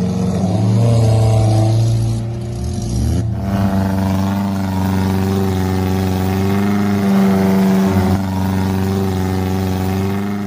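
Off-road 4x4's engine revving hard, its pitch rising and falling for the first few seconds and then held fairly steady at high revs as the vehicle strains to get through deep mud.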